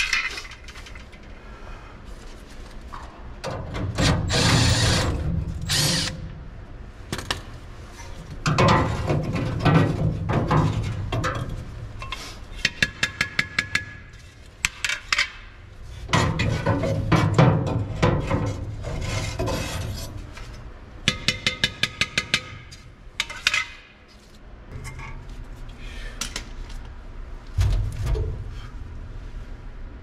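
Cordless impact driver run in several bursts of a few seconds, with runs of rapid, evenly spaced clacking between them.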